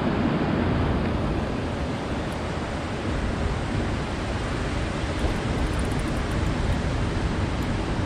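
Steady wash of ocean surf against a rocky shoreline, mixed with wind on the microphone.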